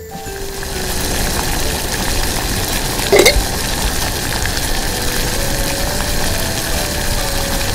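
Water boiling steadily in a small stainless steel pot with a potato in it. A metal clink, the pot's lid, comes about three seconds in.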